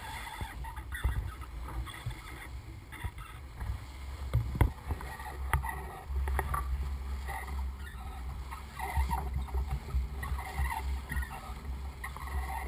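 Water rushing and splashing along the bow of a yacht under way, over a low rumble. A couple of sharp clicks come about halfway through.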